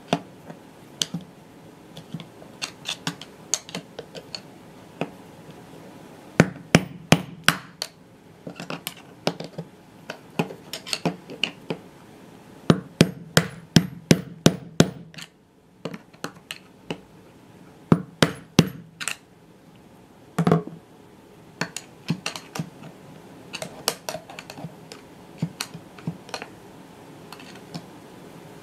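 Hammer blows on a long metal rod used as a drift through the bearing bore of the washing machine's plastic outer tub, trying to knock out a worn drum bearing. Sharp metallic knocks come in irregular runs: a quick flurry about six seconds in, a longer run around thirteen to fifteen seconds in, more near eighteen seconds, and a single heavy strike about twenty seconds in.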